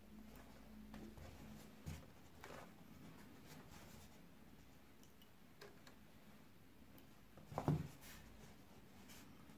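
Faint scraping and small clicks of hand wiring work: a fan's positive wire being fitted into a screw terminal block on a relay control board. One louder knock comes about three-quarters of the way through.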